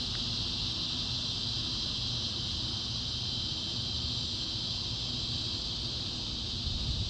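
Steady high-pitched hiss with a low rumble beneath it, unchanging throughout, with no distinct knocks or clicks.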